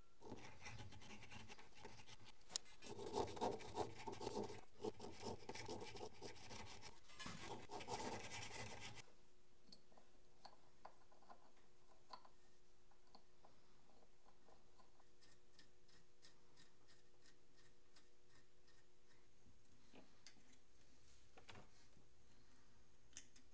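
Quick, rough scraping strokes on a small metal part clamped in a bench vise for about the first nine seconds. After that, only faint clicks and taps of small metal parts being handled.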